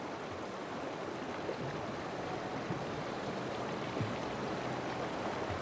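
Fast-flowing river water rushing steadily, with a faint low thud about four seconds in.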